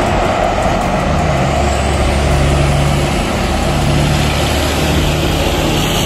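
Heavy diesel trucks and trailers driving past on a highway: a steady mix of engine drone and tyre noise from the passing traffic.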